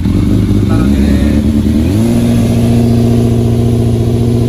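Yamaha FZR 600's four-cylinder engine idling cold just after starting, heard through its aftermarket silencer. It runs a little unevenly at first, then about two seconds in rises slightly and settles into a steady fast idle.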